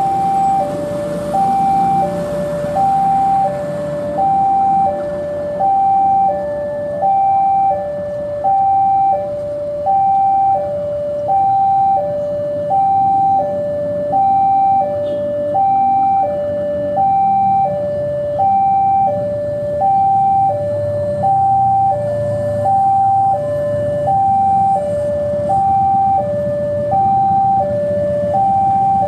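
Railway level-crossing warning alarm sounding, an electronic two-tone signal alternating steadily between a high and a low note, about one of each per second. Under it runs the low rumble of the diesel locomotive's engine.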